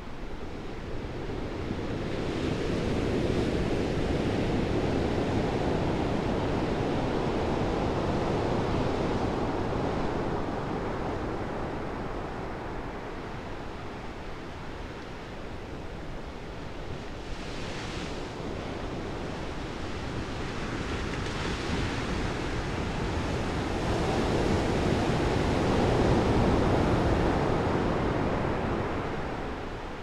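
Ocean surf breaking on a sandy beach and against shoreline rocks: a steady rushing wash that swells a few seconds in, eases, and builds again near the end.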